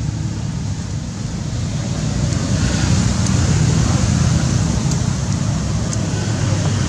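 Steady low outdoor rumble with a hiss above it, swelling a little about two seconds in, with a few faint clicks.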